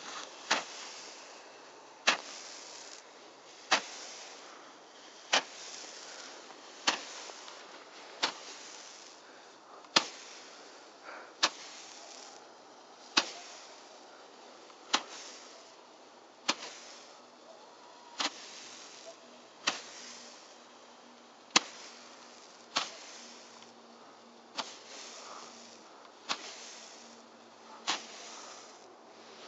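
A 20-shot Roman candle firing: a sharp pop about every one and a half seconds, each followed by a short fizzing hiss as a coloured star is thrown upward, about eighteen shots in all.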